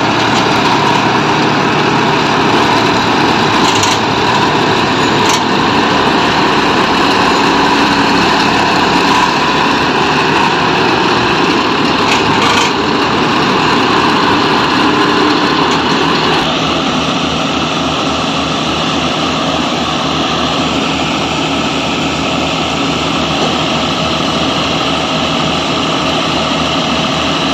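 Combine harvester's engine and threshing machinery running steadily at working speed. About two-thirds of the way through the sound changes and holds at a new steady pitch, with the harvester unloading grain through its auger spout.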